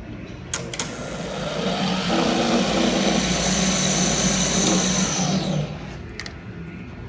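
Schauer LA1C speed lathe, with its two-speed motor, switched on with a click and spinning up. It runs loudly for about three seconds with a high hiss and whine, then winds down quickly after it is switched off, followed by another click.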